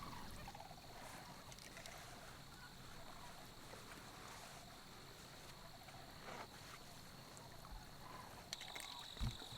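Faint marsh ambience: a steady high-pitched insect trill, crickets calling, with a few small knocks near the end.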